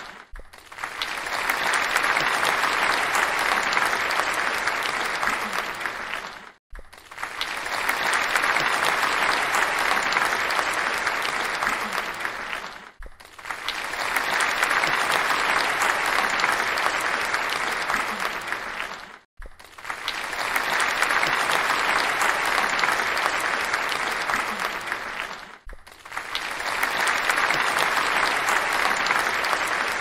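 Crowd applauding, a dense wash of clapping. The same burst of about six and a half seconds repeats over and over: each swells up, holds, then fades into a brief gap before the next.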